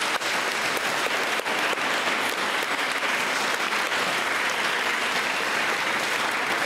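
Steady applause from a small seated audience, many hands clapping at once.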